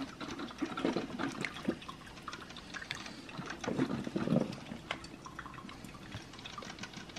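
Drip coffee maker brewing: water gurgling and trickling through the machine, with irregular small ticks and two fuller gurgles about a second in and around four seconds in.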